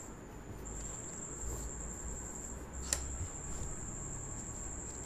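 Steady high-pitched insect trill that breaks off twice for a moment, over a faint low hum. There is a single sharp click about three seconds in.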